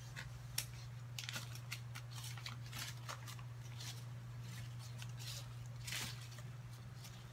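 Crumpled paper peso banknotes crinkling and rustling as they are unfolded and sorted by hand, in irregular crackles, over a steady low electrical hum.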